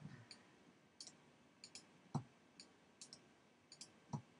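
Faint computer mouse clicks, several in quick press-and-release pairs. Two soft, low thumps come about two seconds in and near the end.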